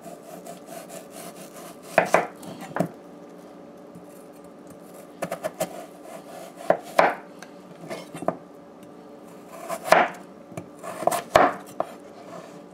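Kitchen knife cutting peeled eddo into chunks on a wooden cutting board: irregular sharp knocks as the blade goes through and strikes the board, singly or in small clusters every second or two.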